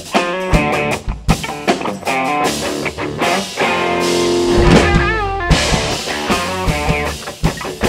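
A rock-country band playing an instrumental intro: an electric guitar riff over drums and bass guitar, with some bent guitar notes about halfway through.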